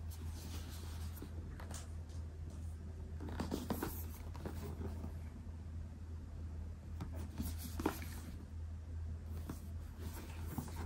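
Cardboard product box being handled and turned over in the hands, its surfaces scraping and rubbing in several short bouts of rustling, over a steady low hum.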